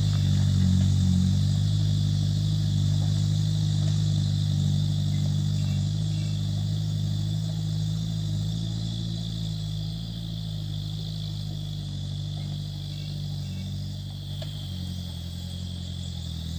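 Dump truck engine running steadily at a low, even pitch, slowly growing fainter, with a steady high-pitched whine above it.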